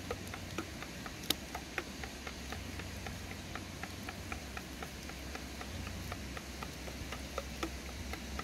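A rapid, irregular series of short sharp clicks, a few a second, over a low steady hum.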